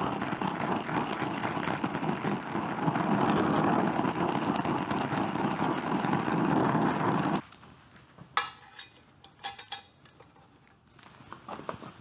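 Oxy-acetylene torch flame hissing steadily while heating an aluminum fin so that it can be bent; it cuts off abruptly about seven seconds in. A few light clicks and knocks follow.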